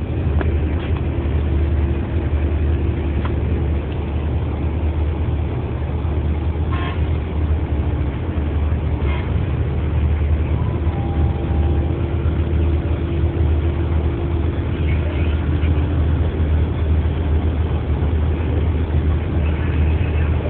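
Steady, loud low engine rumble with a constant hum above it, and a few brief faint sounds about seven and nine seconds in.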